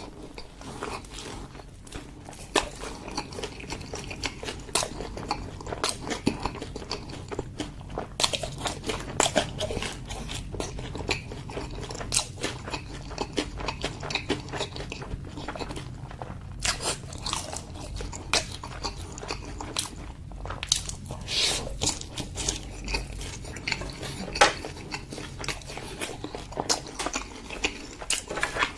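A person chewing and biting food close to the microphone: irregular wet smacks and crunchy bites in quick succession, over a low steady hum.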